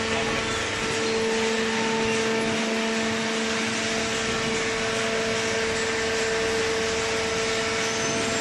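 Fully automatic vertical cardboard baler's hydraulic pump motor running: a steady hum of constant pitch over a dense mechanical hiss.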